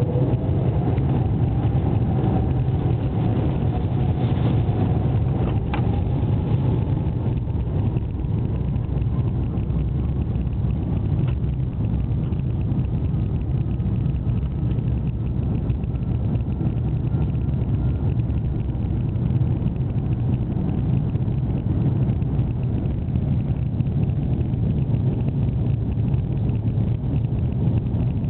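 Airbus A330-200 jet engines at takeoff power heard inside the cabin over the wing: a loud, steady roar during the takeoff roll, with a whine that rises in pitch over the first several seconds as the engines spool up.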